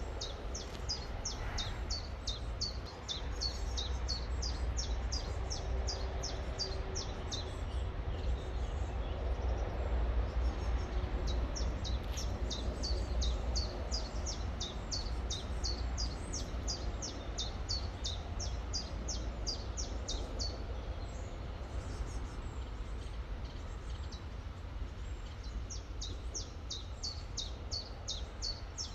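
A small songbird singing long runs of quick, high, downward-slurred notes, about three a second, pausing twice, over a steady low rumble.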